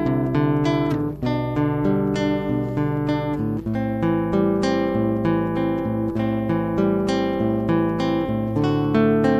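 Acoustic guitar strumming chords in a steady, even rhythm, with no voice.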